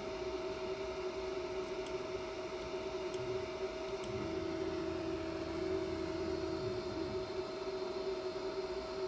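CR-30 belt 3D printer running: a steady hum from its fans, with stepper motors whining as the print head moves. A slightly lower tone holds for about two seconds around the middle.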